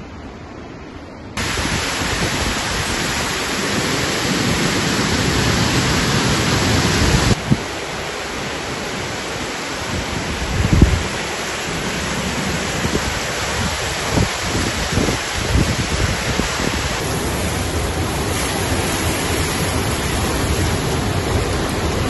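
Steady roar of rushing water from a waterfall, jumping up abruptly about a second in and dropping back around seven seconds in, with a few low rumbles in the middle.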